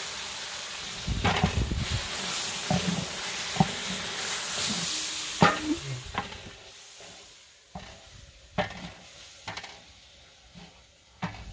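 Chopped onion and tomato frying in oil in a large aluminium pot, sizzling as a wooden spatula stirs and scrapes, with knocks of the spatula against the pot. The sizzle fades about halfway through, leaving scattered knocks.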